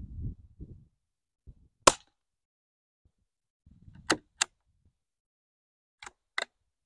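Glenfield Model 25 bolt-action .22 rifle firing .22 Short: one sharp, loud shot about two seconds in, then two pairs of fainter sharp cracks about a third of a second apart, the last pair near the end.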